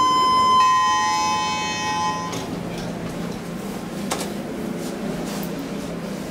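KONE elevator's electronic chime: a steady high tone, joined after about half a second by a slightly lower one, both cutting off together after about two seconds. About four seconds in comes a single click as the cab's down button is pressed, over a low steady hum.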